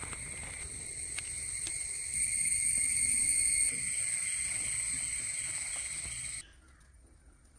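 Steady, high-pitched drone of forest insects, with a few faint clicks over it; it cuts off suddenly about six and a half seconds in.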